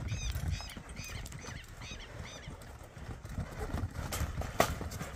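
Horses' hooves on soft corral dirt as the horses trot alongside a calf, an uneven run of low footfalls. A string of repeated high chirping notes, about two a second, is heard in the first half, and a sharp knock comes near the end.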